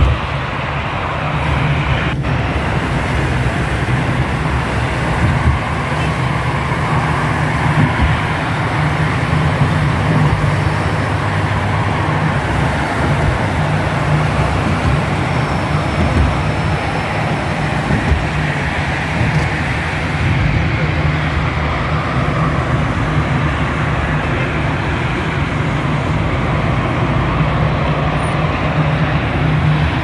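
Steady road traffic noise from cars passing on a highway.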